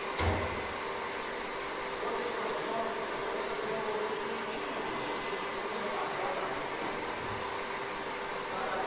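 Steady fan-like hum and hiss with one constant tone, broken by a single dull knock just after the start.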